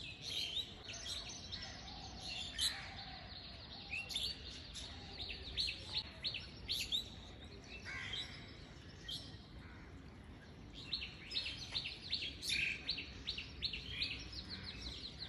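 Small birds chirping: many short, quick chirps scattered throughout, coming thickest in the last few seconds.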